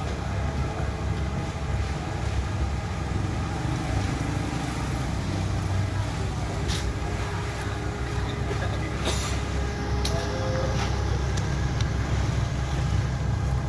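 Motor vehicle engine running steadily with a low rumble, with a few light knocks or clicks about seven, nine and ten seconds in.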